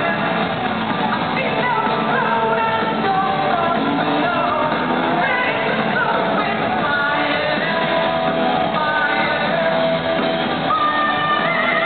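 Live rock band playing through a concert PA, with a woman singing lead over guitars and drums, heard from within the audience.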